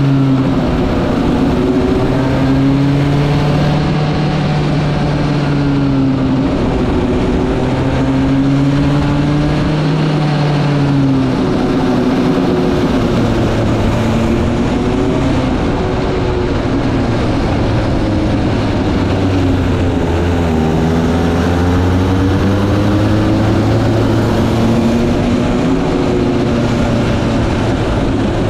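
Go-kart engine running loudly, its pitch repeatedly rising and falling as the kart accelerates and slows.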